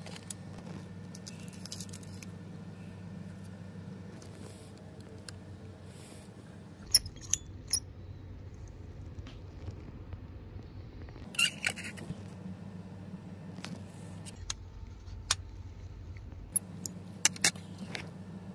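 Plastic labware being handled: sharp clicks and taps in a few short clusters, over a steady low hum.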